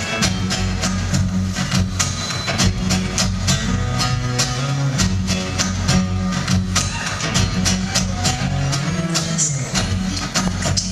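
Live band music: electric guitar playing over a deep bass line and a steady, even beat.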